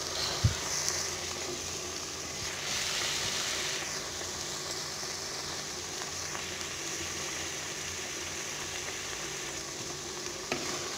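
Hot gongura greens bubbling softly in a clay pot just taken off the heat: a steady low hiss, with a soft knock about half a second in.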